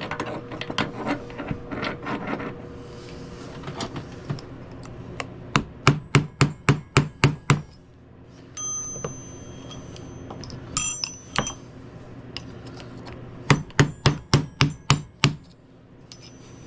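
Hammer tapping out a roll pin from a vintage Craftsman basin wrench: two quick runs of about eight sharp metal strikes, roughly four a second, with a few ringing metal clinks between them.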